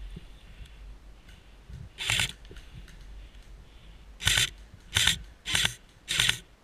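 Airsoft rifle firing five short bursts: one about two seconds in, then four more in quick succession near the end.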